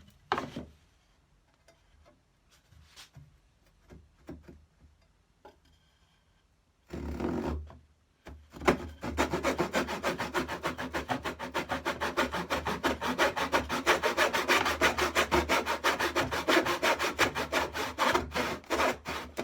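A hand saw cutting across a piece of wood down to a marked depth line, with quick, even back-and-forth strokes from about nine seconds in. Before that there are only a few faint handling knocks.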